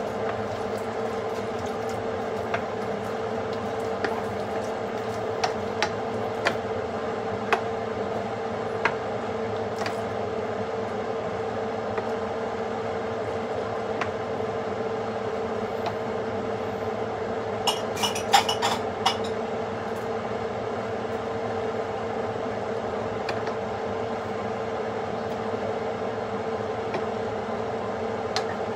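Steady mechanical hum with a constant tone, with scattered light clicks and a quick run of louder clicks about eighteen seconds in.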